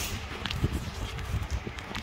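Scattered light clicks and knocks over a low rumble, from a small knife cutting through an apple and baby monkeys scrambling on a plastic basket and tile floor. One sharper click comes right at the start.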